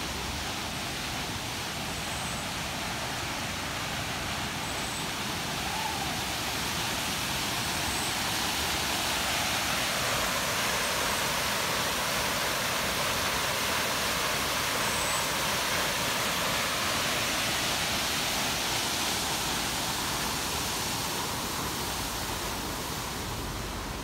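Steady rush of a 70-foot waterfall, water falling from a ledge into a pool; it grows louder through the middle and eases off near the end.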